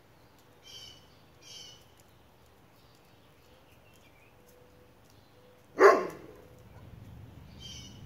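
A single loud bark from a large ridgeback-type dog about six seconds in. Short high bird chirps come just before it, twice early on, and again near the end.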